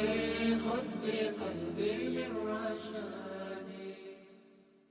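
Closing chords of a cappella nasheed vocals: layered voices hold sustained notes without clear words, fading out to silence near the end.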